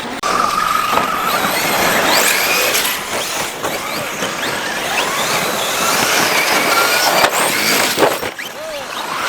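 Large electric RC basher truck's brushless motor whining up and down in pitch as it accelerates and slows, over the hiss of tyres on dirt. Near the end come two sharp knocks.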